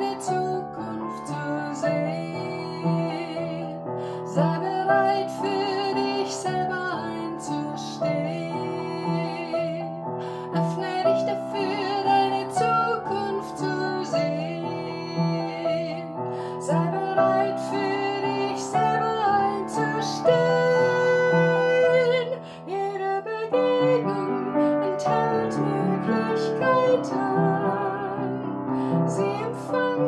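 A woman singing a German song with vibrato, accompanying herself on an upright piano. A long held sung note comes about two-thirds through.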